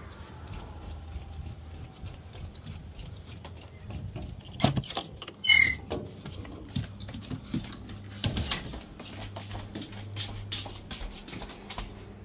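A run of light clicks and knocks over a faint low hum, with a louder cluster of knocks about four and a half seconds in that carries a brief high squeak, and more knocks a little after eight seconds.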